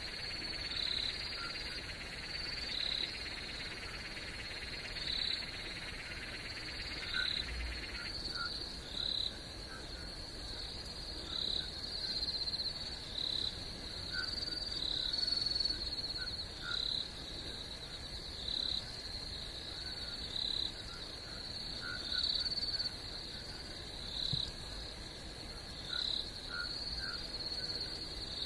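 Chorus of insects: a steady high trill with a louder chirp roughly every second, and fainter, lower chirps scattered among them.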